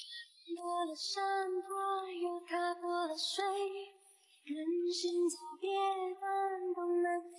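A high voice singing a slow melody in long held notes, as a background song, with a short break about four seconds in.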